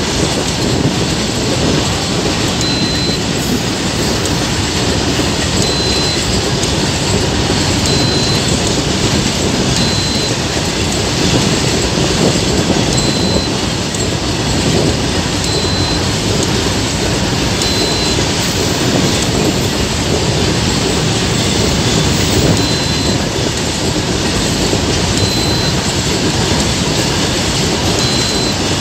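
Long Indian Railways freight train of covered wagons, two rakes coupled together, rolling steadily past: a continuous rumble and clatter of wheels over the rail joints, with short high squeaks from the wheels every few seconds.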